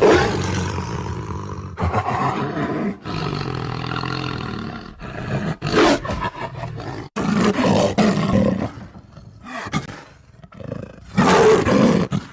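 Tiger roaring: a series of deep, loud roars with brief breaks between them, the strongest at the start and again about eleven seconds in.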